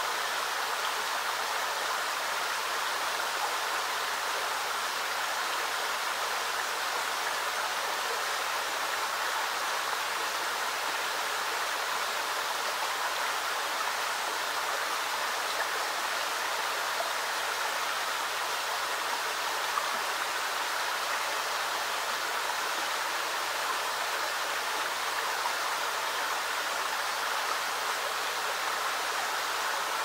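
Creek water trickling through the rocks of a small dam into a pool, a steady, unbroken rush.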